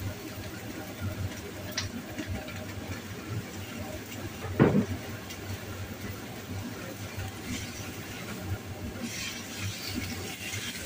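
Stir-fry cooking in a stainless steel wok on a gas stove: a steady low rumble, one sharp knock about halfway through, and a burst of spatula scraping and tossing in the wok near the end.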